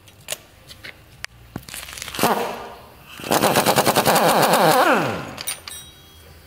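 Pneumatic impact wrench hammering on the drawbolt of a subframe bush removal tool: a short blip, then about a second and a half of rapid hammering that falls in pitch as the wrench winds down. A few light metal clicks from handling come before it.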